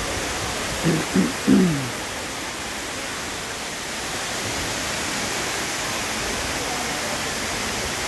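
Steady rush of a tall indoor waterfall pouring down a plant-covered wall. About a second in, a voice gives three short calls, each falling in pitch.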